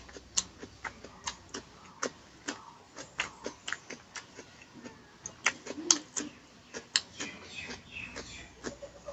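Close-up eating sounds: chewing and lip-smacking, an irregular run of sharp wet clicks two or three a second, loudest about six seconds in.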